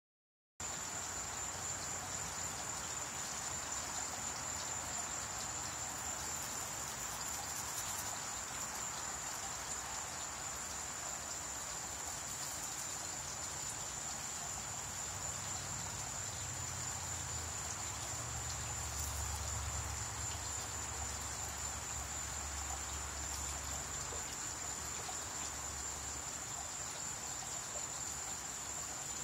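Steady high-pitched insect chorus, one unbroken shrill note from start to end, over a hiss of outdoor background noise. A low rumble swells up in the middle and fades again.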